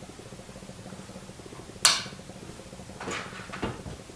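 Steel parts and tools of a No. 5 rolling block rifle action clinking against each other and the workbench as the action is taken apart. One sharp metallic clink about two seconds in, then two softer knocks near the end.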